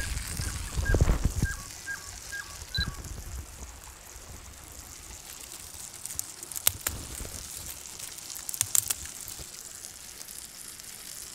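Low rumbling handling noise as the camera is carried, over the steady trickle of a creek, while a bird repeats a short high note about six times in the first three seconds. Later come a few sharp snaps as puha (sow thistle) stems are broken off by hand, once near the middle and a quick cluster a couple of seconds after.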